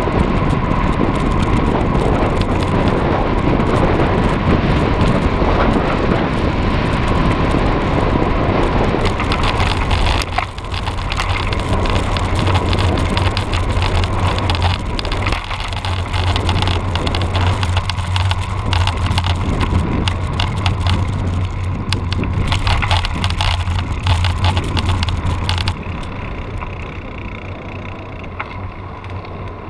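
Riding a cross bike: steady wind rush on the microphone mixed with tyre and road rumble and rattling. The noise drops and thins near the end.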